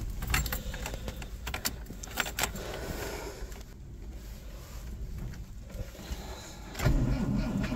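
Keys jangling and clicking in the ignition of a 1983 Toyota Tercel wagon. Near the end the starter begins cranking the cold engine, which has sat for a couple of weeks at −6 degrees.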